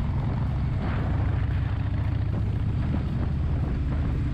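Harley-Davidson V-twin motorcycle engine running steadily under way, a dense low rumble with a steady rush of wind and road noise over it.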